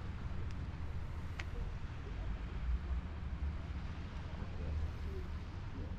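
Low, steady rumble of wind on the microphone, with faint voices of people passing and a single light click about a second and a half in.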